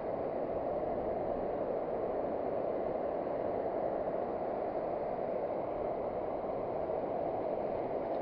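Steady, even rush of ocean surf breaking on the beach, with no separate events.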